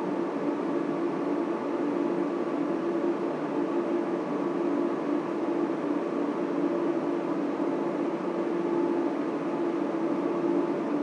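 Steady whirring and hiss of data center cooling fans and equipment, with a constant hum in the low midrange and fainter steady tones above it, unchanging throughout.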